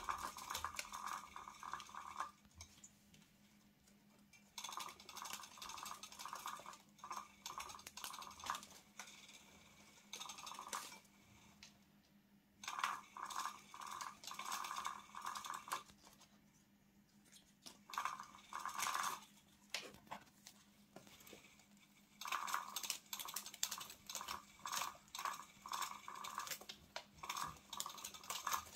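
Battery-powered rotating butterfly cat toy running in stop-start spells of a few seconds, its small motor whirring with a rattling, clicking clatter. It stops and starts again several times.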